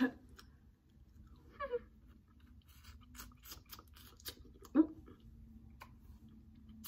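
Mouth chewing and biting at a chewy sour candy strip: a run of small wet clicks and smacks, with two short vocal noises, one under two seconds in and a louder one near five seconds.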